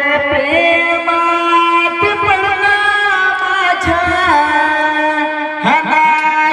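Singing in long, held notes with sliding ornaments over instrumental accompaniment, with a few low drum strokes.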